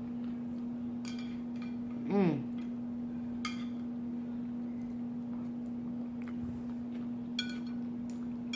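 Eating at close range: a few faint clicks of chopsticks and mouth sounds, and a brief 'mmm' of enjoyment about two seconds in, over a steady low hum.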